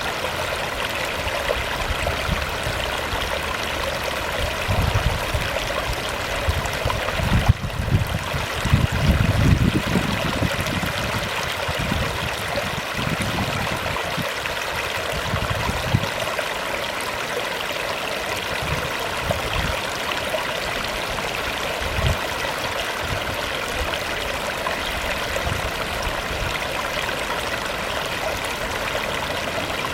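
River water babbling over a rocky bed, a steady rushing sound. Irregular low rumbles come and go, strongest about a quarter of the way through.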